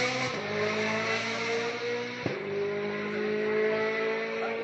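Rally car engine pulling hard through the gears, its pitch climbing steadily. There are two upshifts, one just after the start and one about two seconds in.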